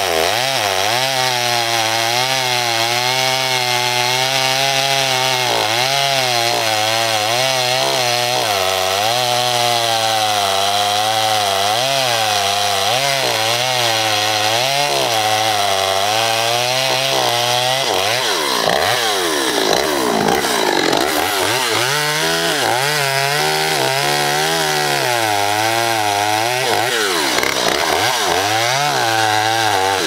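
Two-stroke chainsaw cutting the scarf (face notch) into a standing tree trunk, its engine pitch wavering up and down as the chain works through the wood under load. The saw stops near the end.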